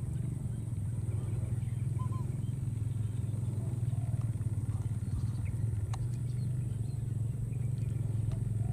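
A steady low rumble, like an engine running, with a faint steady high-pitched whine above it. A few faint short chirps and a single click come through over it.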